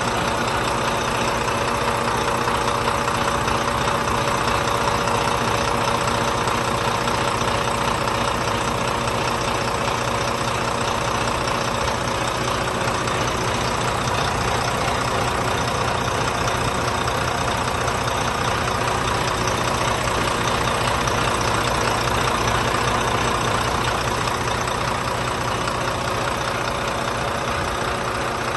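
Volvo 9500 coach's diesel engine idling steadily, heard close up at the open rear engine bay, with an even clatter and hum that never changes speed.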